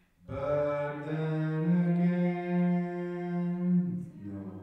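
A man's voice through a hand-held microphone, intoning one long held note in a steady, chant-like drone. It begins about a quarter second in and stops just before the end.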